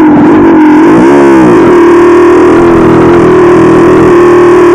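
A 440cc dirt bike engine running loud under the rider on a slow climb. About a second in, the revs sag briefly and then pick back up. The engine is bogging just off idle and needs more throttle.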